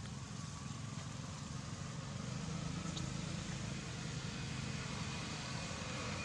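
A distant engine drone, steady and growing slightly louder, over an even background hiss, with a faint click about three seconds in.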